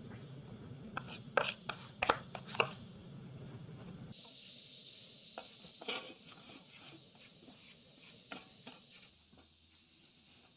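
Dry flour poured from a plastic scoop into a pan, with a few sharp taps of the scoop on the rim. Then a wooden spatula stirs and scrapes the flour around the pan as it is toasted for kaachi, over the steady hiss of a gas burner.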